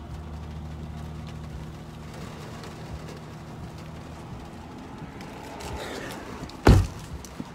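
Inside a vehicle: the engine runs with a steady low hum while the windshield wipers sweep across the glass, and a single loud thump comes near the end.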